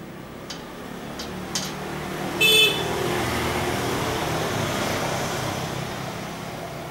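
A motor vehicle passing by, with one short horn toot about two and a half seconds in as the sound swells and then fades. A few light clicks come in the first two seconds.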